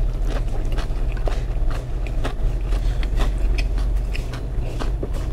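A man slurping long, chewy Hamhung-style cold buckwheat noodles (naengmyeon) into his mouth without biting them off, many short wet sucking clicks over a steady low hum.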